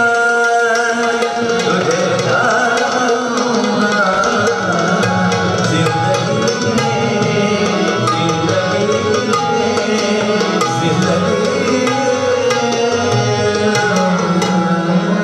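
Tabla and harmonium playing together: the harmonium holds a melody over a stream of tabla strokes.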